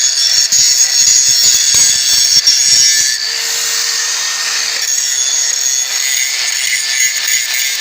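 DeWalt DCG414 54 V FlexVolt cordless 125 mm angle grinder grinding down weld seams, its disc running continuously against the steel. About three seconds in, the sound changes for about a second and a half and a steady hum comes through, then the grinding resumes.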